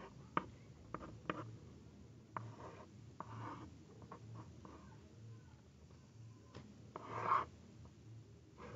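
Hand drawing on a sheet of paper laid on a table: faint scratching strokes and light ticks of the tip on the paper, with a louder, longer rub about seven seconds in.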